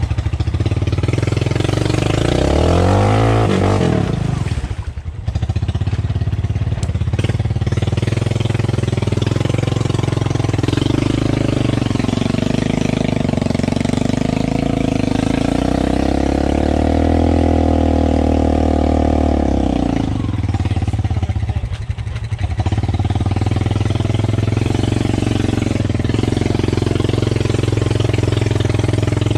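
Honda ATV's single-cylinder engine revving up and down as it pulls through soft mud, with the throttle dropping off briefly twice.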